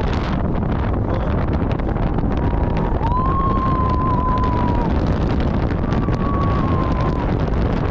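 Wind rushing over the camera microphone on a moving roller coaster car, steady and loud, with a thin high whine that rises in about three seconds in, holds for a couple of seconds, and comes back more faintly, falling slightly, near six seconds in.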